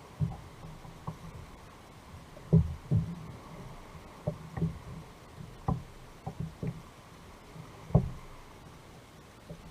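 Irregular low knocks and thumps against a kayak hull, about a dozen, the loudest about two and a half seconds in and near the end.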